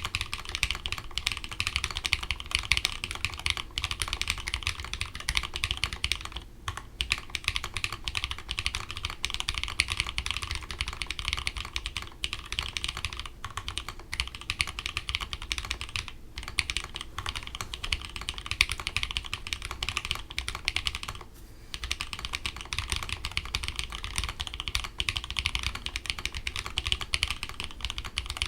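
Fast continuous typing on a mechanical keyboard with Holy Milk switches (Gateron milky green housings, Halo True stems, lubed springs) and ABS keycaps, a dense stream of key clicks with a few brief pauses.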